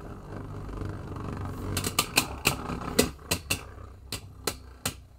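Two Beyblade Burst tops, Helios Volcano and Dynamite Belial, spinning in a plastic stadium. There is a low steady whir at first, then from about two seconds in a run of sharp, irregular clicks as the tops clash against each other.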